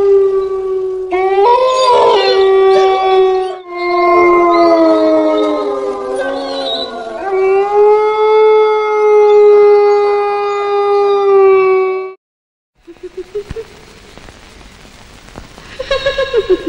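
Long, drawn-out canine howls, one after another, the pitch held mostly steady with a slow fall in the middle and overlapping howls early on, an eerie horror-style sound. After a short break near the end, a faint rising wail comes in.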